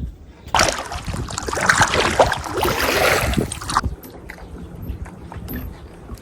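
Kayak paddle strokes splashing water: a loud stretch of splashing begins about half a second in and stops suddenly a little over three seconds later. Faint drips and light knocks follow, over a low rumble of wind on the microphone.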